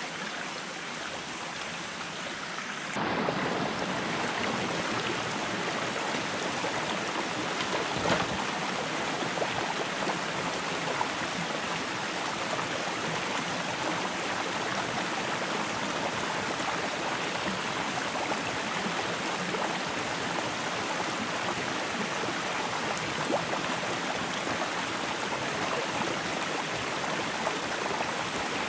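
Shallow rocky stream running steadily, a little louder from about three seconds in, with a single sharp knock about eight seconds in.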